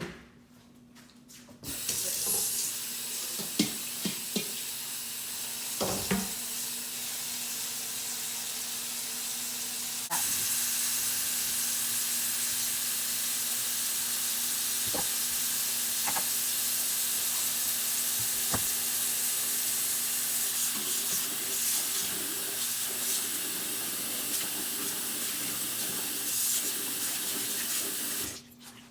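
Kitchen tap running steadily into a container of snow pea leaves to wash them, turned on about two seconds in and off near the end; the flow gets louder about ten seconds in. A few knocks from the container and leaves being handled sound early on.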